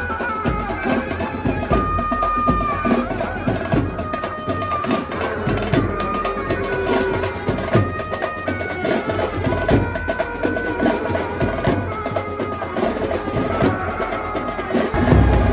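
Procession band music: dhol and tasha drums beating in a dense, steady rhythm, with a melody of held notes over them.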